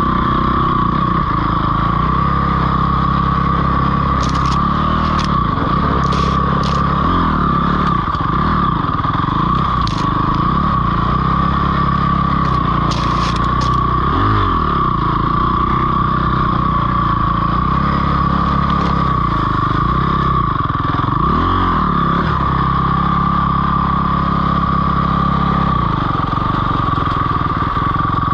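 Dirt bike engine running on a rough trail, its revs dropping and climbing back up twice as the rider eases off and gets back on the throttle. A few sharp clicks and clatters come in the first half.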